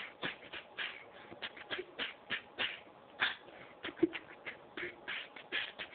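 Maracas shaken in short, uneven rattles, about two to three shakes a second.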